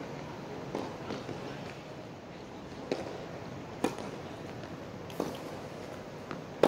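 Tennis ball hits: a sharp crack of the serve struck with a Wilson Pro Staff 97 racquet about four seconds in, the opponent's return a little over a second later, and a louder hit right at the end, with a lighter knock of the ball about a second before the serve.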